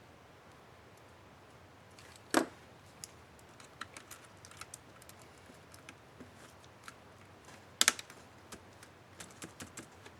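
Plastic clicks from the Asus K55A laptop keyboard as a keycap is worked on and pressed. There is a sharp snap about two seconds in, a loud double snap near eight seconds, and scattered lighter clicks between and after.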